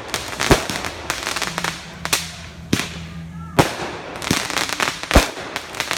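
Backyard consumer fireworks going off in quick succession: a run of sharp bangs and crackles. The heavier reports come about half a second in, around two to three and a half seconds, and the loudest just after five seconds.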